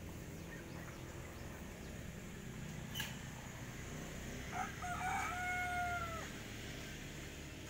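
A rooster crows once, about four and a half seconds in: a couple of short notes, then one long held note of over a second. A single sharp click comes about three seconds in.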